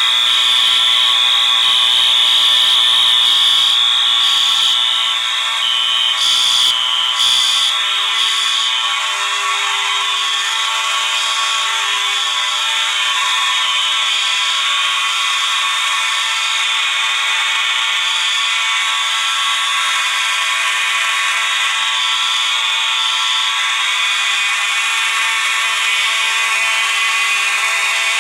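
Several fire alarm horns wired to one fire alarm panel, all sounding at once in a steady, really loud alarm.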